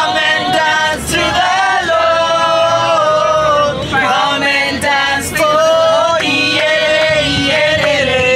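A group of people singing together, men's voices leading, with long held and sliding notes.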